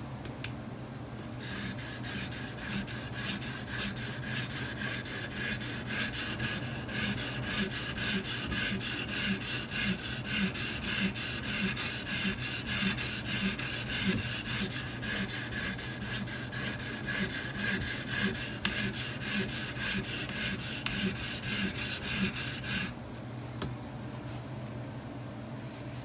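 Coarse 220-grit stone on an Edge Pro guided sharpener rasping along a knife edge in steady back-and-forth strokes, about one and a half a second, to raise a burr while setting the bevel. The strokes stop abruptly near the end.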